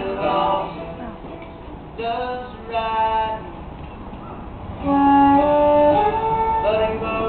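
Live band music with sung phrases, settling into long held notes from about five seconds in.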